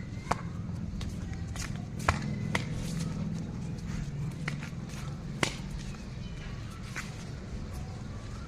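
Several sharp clicks and taps at irregular intervals over a steady low hum.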